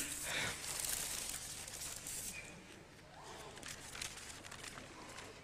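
Paper rustling and crinkling as a wrapped flower bouquet is handled, loudest in the first two seconds, then fading to a fainter rustle as a small card is drawn from its envelope.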